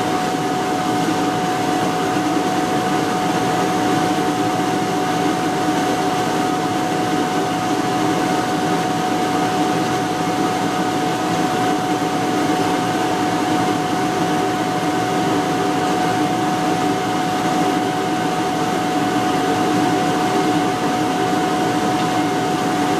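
A 1998 Johnson 30 HP two-stroke outboard motor running steadily in a test tank, its speed unchanged throughout.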